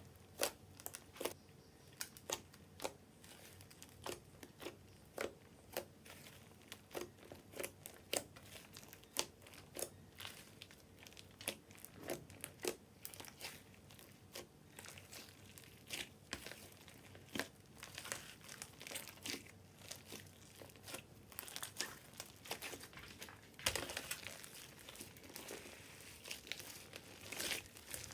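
Slime being worked by hand, giving irregular sticky clicks and pops about once or twice a second, with a denser crackling stretch near the end.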